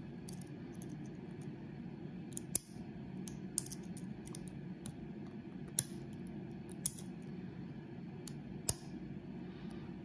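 Irregular sharp metallic clicks and ticks from a hook pick working the pins inside a large Ace padlock's cylinder under a tension wrench, with the shackle still locked.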